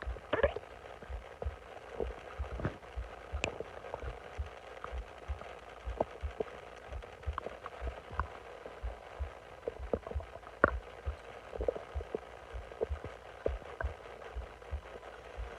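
Bowel sounds of a bloated stomach: an irregular run of small pops, clicks and short gurgles, with louder squelches about half a second in and near eleven seconds.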